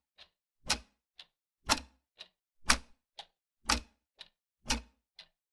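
Clock ticking steadily, a louder tick each second alternating with a softer one half a second later.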